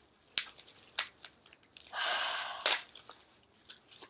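Packaging being handled: scattered crinkles and clicks, with a longer rustle about two seconds in that ends in a sharp snap, like wrapping being pulled off.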